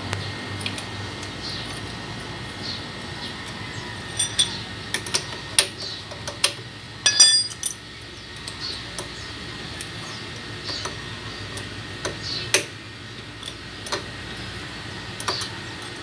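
Small metal clicks and clinks as a chrome axle cap cover is fitted onto a motorcycle's front axle end, with one louder ringing metal clink about seven seconds in.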